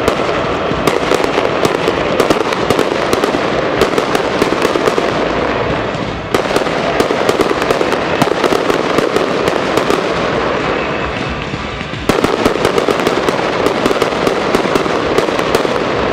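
Fireworks display going off continuously: a dense run of crackles and bangs from bursting shells, with the loudness sagging and then jumping back up about six and twelve seconds in.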